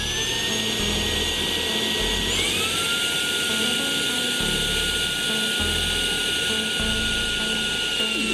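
UV Care Dual Vacuum Plus handheld vacuum motor running with a steady whine. About two seconds in it steps up to a higher pitch, as when switched to its stronger suction setting. It stops near the end.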